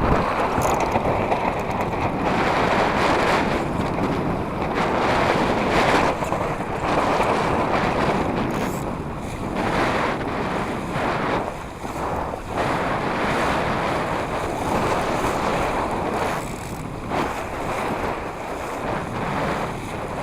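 Wind buffeting the microphone with water rushing and splashing, as heard aboard a small sailing dinghy; the noise swells and eases in gusts.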